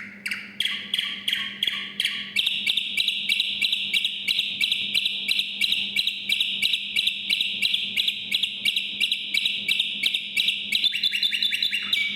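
Competition song canary singing one long phrase. It opens with slower repeated notes, settles about two seconds in into a long even trill of about five notes a second, and near the end breaks into a faster trill before stopping.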